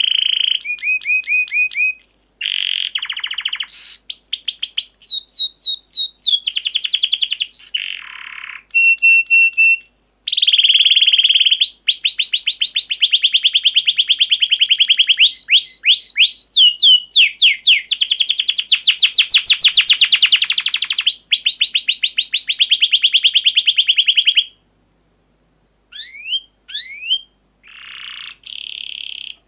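Canary singing long rolls of rapidly repeated whistled notes and trills, with some harsher notes in between. The song breaks off about five seconds before the end, and a few scattered chirps follow.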